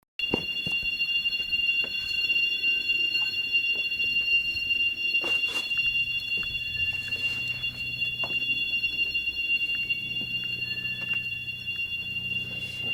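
A very loud, continuous high-pitched screech: one strong steady tone with several fainter higher tones held together, unchanging in pitch, of unknown origin. A low hum joins about halfway through.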